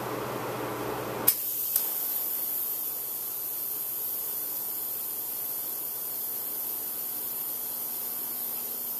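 A TIG welding arc strikes with a sharp click about a second in, clicks once more, then runs as a steady high-pitched hiss. Before the arc strikes there is a fan-like steady noise.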